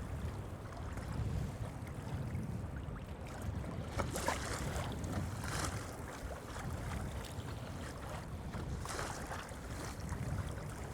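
Wind rumbling on the microphone over water lapping against a kayak on open lake water, with a few brief splashing hisses.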